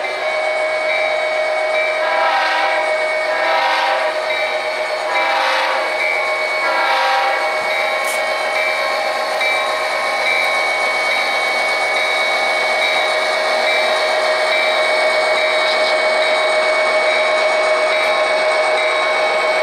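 Sound decoder in an HO-scale Athearn Genesis GP39-2 model locomotive playing diesel engine sound through its small onboard speaker, a steady drone with a high whine. Four horn blasts on the decoder's Leslie S5T horn sound come between about two and seven seconds in.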